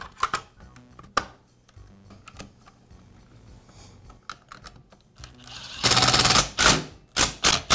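Plastic motor cover of a string trimmer being fitted and screwed down by hand: scattered light clicks and knocks of plastic and screwdriver, then a loud rapid rattle lasting under a second about six seconds in, followed by a few sharp clicks.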